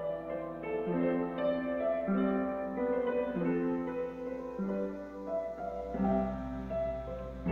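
Background instrumental music: a slow piano melody over held chords.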